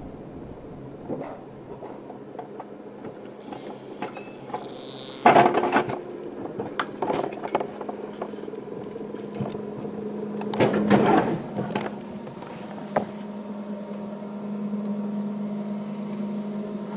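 An alpine coaster sled being hauled up the lift section of its tubular rail track: a steady mechanical hum, with several sharp clanks about five, seven, eleven and thirteen seconds in.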